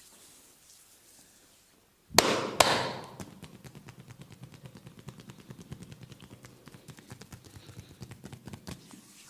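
Two loud sharp smacks half a second apart, then fast, even percussive massage strikes on the body, about five a second, stopping shortly before the end.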